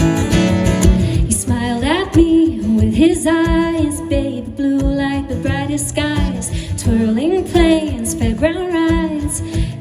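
Live music: a woman singing over strummed acoustic guitar, her voice entering about a second and a half in with long held and sliding notes.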